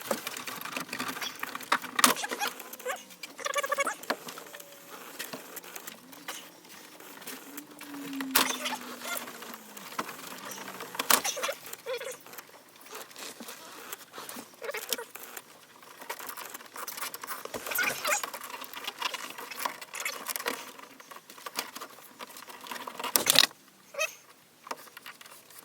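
Plastic overhead console trim being worked loose from its clips and connectors by hand: scattered clicks, scrapes and rattles, with a few sharp clicks.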